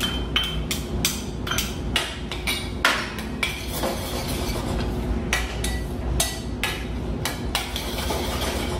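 A metal utensil stirring in a stainless steel bowl, knocking and scraping against its sides in irregular clinks, a few a second, some with a short metallic ring.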